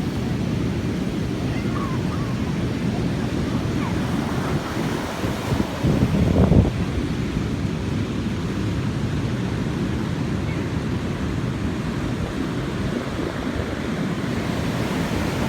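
Ocean surf washing in, with wind rumbling on the microphone, steady throughout and swelling louder for a moment about six seconds in.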